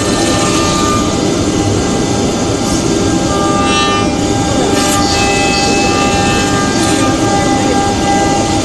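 ATC CNC router's spindle running and machining the edge of a wooden door: loud, steady machine noise with several steady high-pitched tones, and a few brief hisses.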